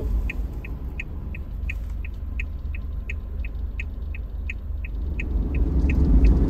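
A short high beep repeating evenly, about three times a second, over a low rumble; the beeping stops about six seconds in.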